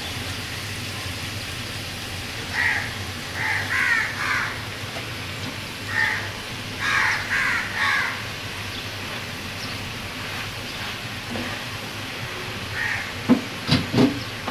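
Crows cawing several times in short runs of two or three, over a steady background hiss. A few sharp knocks near the end.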